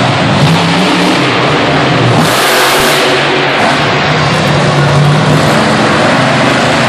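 Monster truck engine running loud and revving, its pitch rising and falling, with a brief rushing noise a little over two seconds in.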